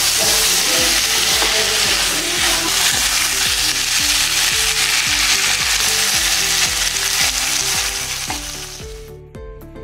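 Goat intestine fry sizzling in a nonstick kadai while a spatula stirs and scrapes through it. The sizzle fades out near the end, leaving background music with a steady beat.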